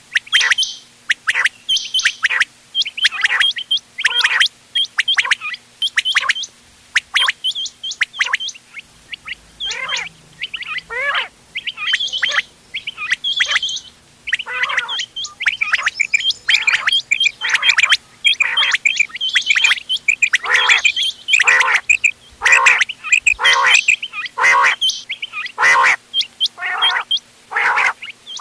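Quails calling, a mix of several birds: short, sharp, repeated calls in quick succession, several a second and often overlapping, used as a lure call for quail hunting.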